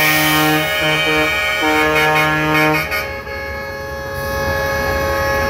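Truck air horn blowing a low, steady note in long blasts broken by short gaps, stopping about three seconds in. After it, traffic engines running.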